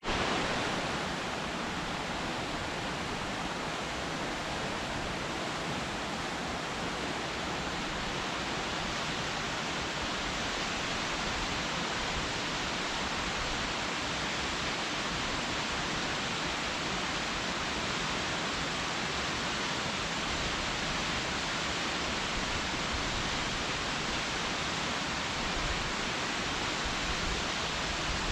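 Waterfall pouring steadily, a dense even rush of falling water.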